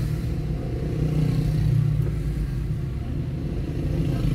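A car's engine and road noise heard from inside the cabin as it creeps forward in slow traffic: a low, steady rumble that grows louder about a second in.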